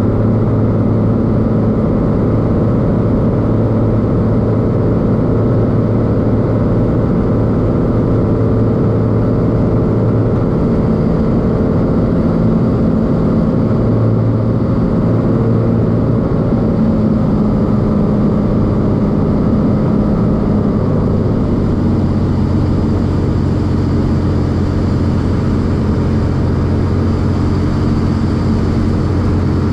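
Cessna T206H Turbo Stationair's turbocharged six-cylinder engine and propeller droning steadily, heard inside the cabin on approach. Its pitch drops slightly about two-thirds of the way through.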